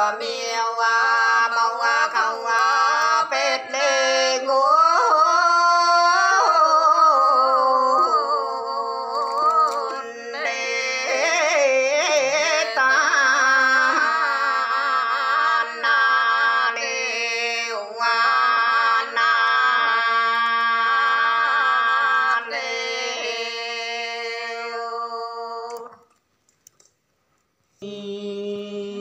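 A woman singing a slow, ornamented folk melody over a steady held drone. The sound breaks off about 26 seconds in and comes back a second or two later on a lower drone.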